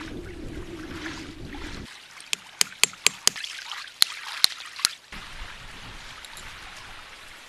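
Wet clay being pressed and worked by hand. It gives way, about two seconds in, to about eight sharp clicks of a hand-held stone being struck, a few a second. A faint steady hiss follows.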